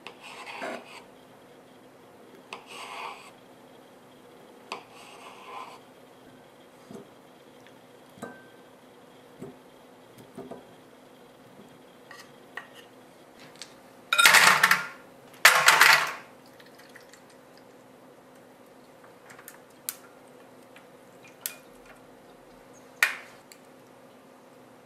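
Cutlery and dishes being handled during food preparation: scattered soft scrapes, two louder scrapes about halfway through, and a few sharp clinks near the end.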